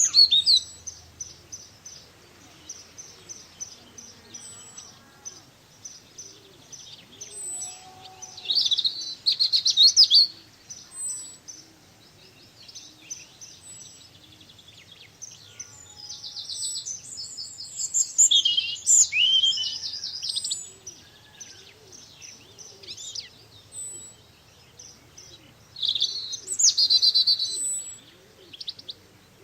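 Small garden birds chirping and singing, with a thin high note repeating about once a second and louder bursts of rapid twittering song three times.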